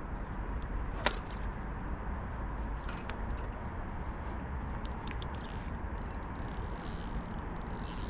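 Outdoor riverbank ambience: a low steady rumble with one sharp click about a second in. A high, steady buzz begins about six seconds in.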